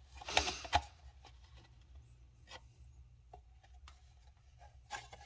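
Plastic model-kit saucer halves being handled and pressed together for a test fit: a short burst of rubbing and scraping in the first second, then faint scattered clicks and taps of plastic on plastic.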